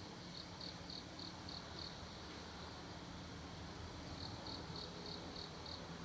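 Insect chirping: two runs of about six evenly spaced high chirps, roughly three a second, the first near the start and the second about four seconds in, over a faint low steady hum.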